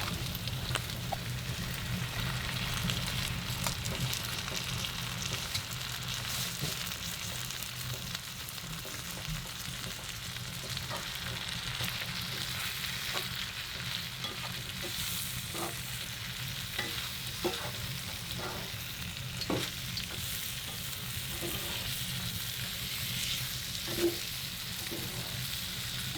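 Chorizo, pepper and onion frying with beans in a pan on a wood camp stove: a steady sizzle, with a spoon stirring and knocking against the pan about once a second in the second half, one knock louder near the end.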